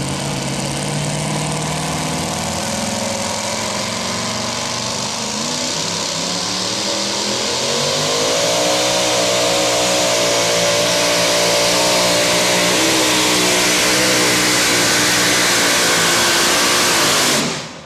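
Supercharged engine of a modified two-wheel-drive pulling truck running at full throttle as it hauls the sled. The engine note climbs and wavers about a third of the way in, holds steady and loud, then cuts off abruptly just before the end as the engine is shut down.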